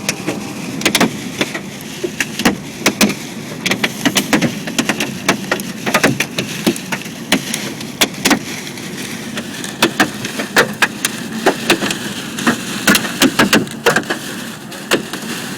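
Large hail hitting a car's body and glass in irregular sharp knocks, several a second, heard from inside the car over a steady rushing noise.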